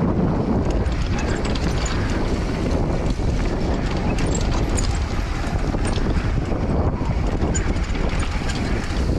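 A mountain bike rolling fast downhill on a dirt trail: a steady rush of wind over the microphone and knobby tyres on packed dirt and loose stones, with many small clicks and rattles throughout.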